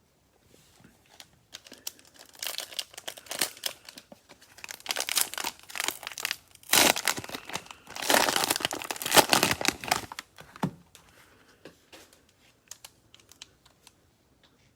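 Plastic cello wrapper of a trading card pack crinkling and tearing as it is opened, in dense crackling spells that are loudest in the middle, then a few light ticks as it dies away.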